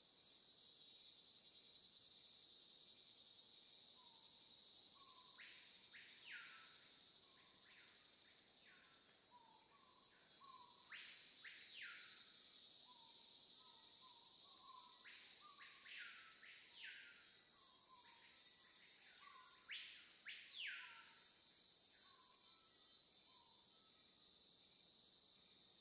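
Faint, steady high-pitched insect droning that grows louder about ten seconds in. Short bird chirps repeat through it, with several longer sweeping bird calls in the middle.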